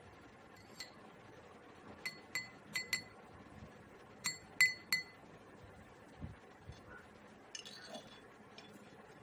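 Metal spoon clinking against a glass tumbler of tea while stirring: about eight light clinks in small clusters, each leaving a brief glassy ring.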